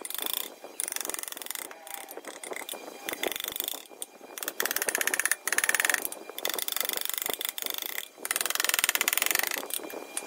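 A steel wood chisel scraping and paring across the grain of a pine block in about six strokes of one to two seconds each, with short pauses between. The edge chatters with a fast, even rasp.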